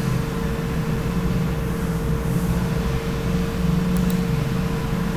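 Steady mechanical room hum with one constant tone, like a running fan, and two faint mouse clicks about four seconds in.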